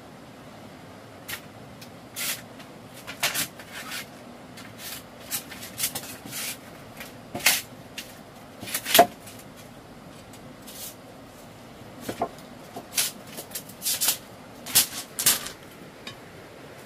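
Irregular short knocks and scrapes, some in quick clusters. The loudest, about nine seconds in, has a brief ring. A steady faint hiss runs beneath.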